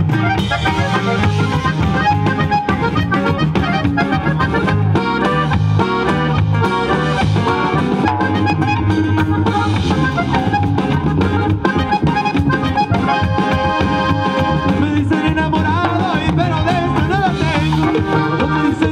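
A live band, with drum kit and guitars, playing upbeat Latin dance music amplified through a PA system.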